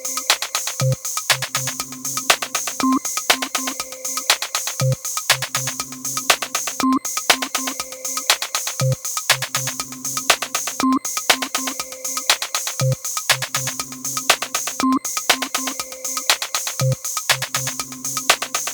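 Korg Kaossilator handheld synthesizer playing a looped techno pattern: a dense, fast run of electronic clicks over a short bass-and-synth phrase that repeats every two seconds.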